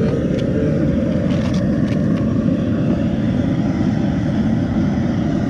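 A loud, steady low rumble with no breaks, with a few faint clicks about a second and a half in.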